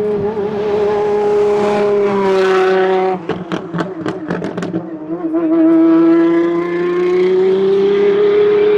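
Apollo IE's straight-piped, naturally aspirated V12 running at steady revs. About three seconds in, the throttle closes and a quick run of about eight crackles and pops sounds on the overrun. The engine then pulls again, its pitch climbing slowly.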